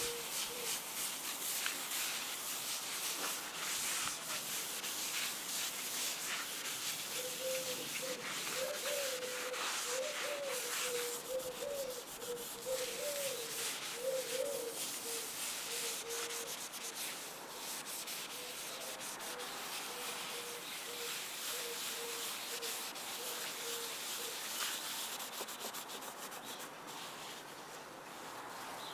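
A pad rubbed by hand back and forth over the surface of an olive wood burl and epoxy resin round, buffing in an oil finish: a continuous scrubbing of repeated strokes.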